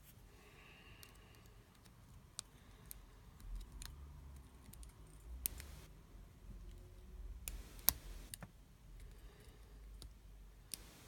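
Lock pick working the pins of a Yale 125/50 padlock under tension: irregular light clicks and short scrapes of the pick against the pins, with one louder click about eight seconds in.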